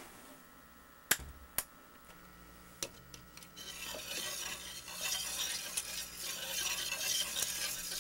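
Reel-to-reel tape recorder being started: three sharp clicks of its keys in the first three seconds, then a low motor hum, and from about three and a half seconds a loud crackling hiss of tape playback.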